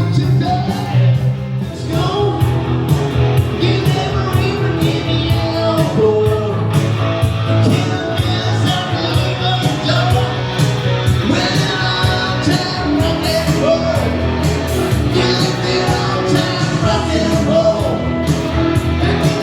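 A rock and roll song with a singing voice and a steady beat.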